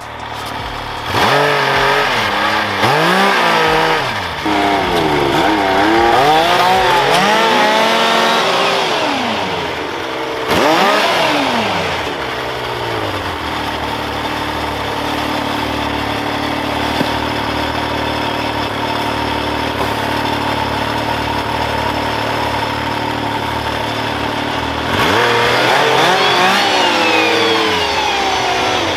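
Snowmobile engine revving up and down repeatedly, then running at a steady pitch for about ten seconds, then revving again near the end.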